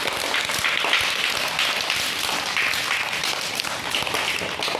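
A group of young children clapping their hands, many quick claps overlapping without a break.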